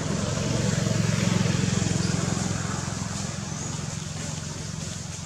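A motor engine's steady low hum, growing louder over the first second and a half and then slowly fading.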